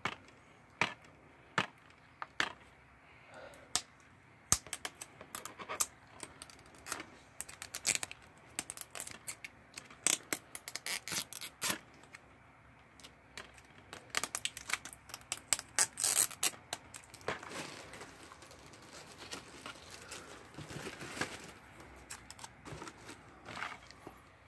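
Fingernails picking and scratching at a plastic DVD case and peeling off its security sticker labels: irregular clicks and crackles, coming in quick flurries about ten and fifteen seconds in.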